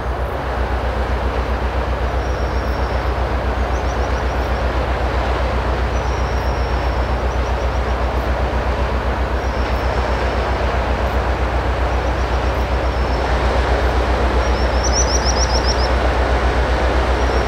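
Diesel engine of a ship passing close by, a steady rapid low throb over a broad rumble that grows a little louder near the end.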